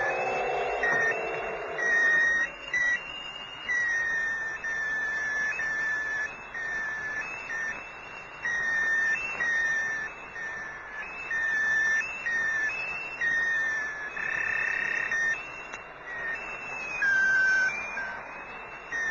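Soundtrack music: a high, whistle-like melody of held notes, each about a second long, that slide up and down between pitches over a steady hiss. Lower tones underneath fade out within the first two seconds.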